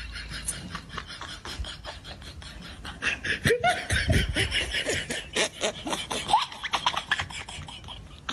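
A rhythmic beatbox-style backing track, joined about three and a half seconds in by laughter that rises and falls in pitch and is louder than the beat.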